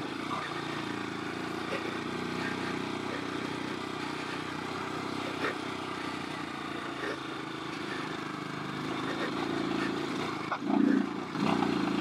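Royal Enfield Himalayan's air-cooled single-cylinder engine, fitted with a Tec camshaft, pulling the bike up a steep dirt climb. It runs steadily, then gets louder near the end with a brief strong surge as the throttle opens.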